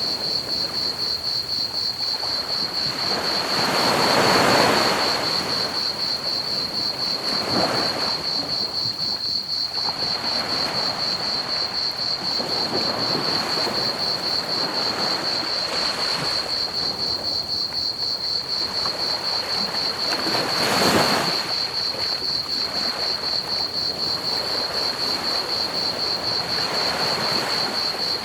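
Ocean waves washing onto a beach, a few of them swelling louder as they break, over a steady, fast, high-pitched trill of crickets and a constant even hiss of pink noise.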